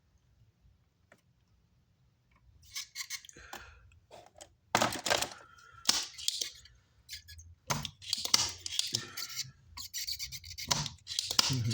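Scraping and rubbing of hand tools against an amplifier circuit board while the old crossover switch is being desoldered. The noise comes in irregular bursts, with a few knocks, starting a couple of seconds in.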